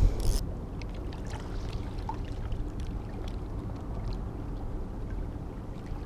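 Steady rush of spillway water flowing past a rocky bank, an even, low-weighted noise.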